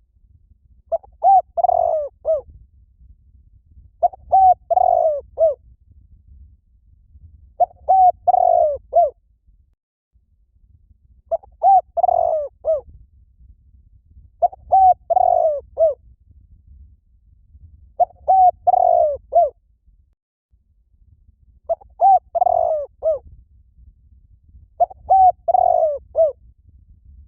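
Spotted dove cooing: a phrase of several coos repeated about every three and a half seconds, used as a lure call to draw in other doves.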